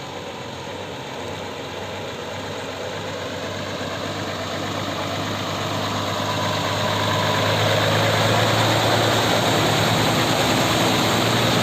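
A motor vehicle's engine running with a steady low hum and a broad rushing noise, growing louder over about eight seconds, then holding steady.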